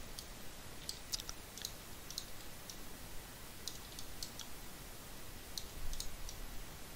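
Scattered clicks of a computer mouse and keyboard, irregular and some in quick pairs, from a computer being worked in 3D modelling software, over a low steady hiss.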